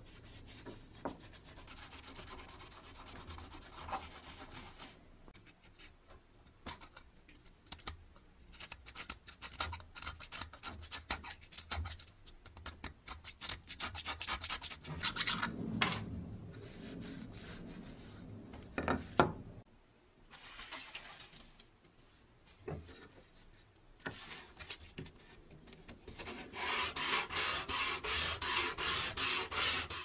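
A wooden board being cleaned by hand: a cloth rubbed over the rusty wood, then quick scraping strokes as rust and old finish come off. Near the end, the board is pushed back and forth on sandpaper at about three strokes a second.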